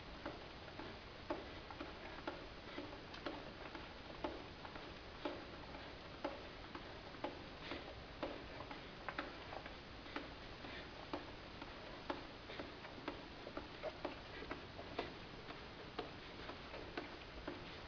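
Footsteps walking along a narrow tunnel's hard floor: a steady tap about once a second, with lighter steps in between.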